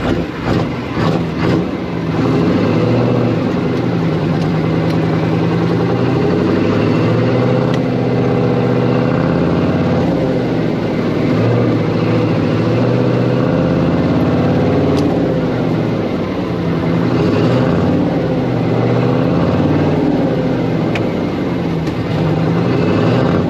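Cummins V8-555 "Triple Nickel" diesel of a 1972 Brockway 358 truck running under load, heard from inside the cab while driving. The revs rise and fall several times.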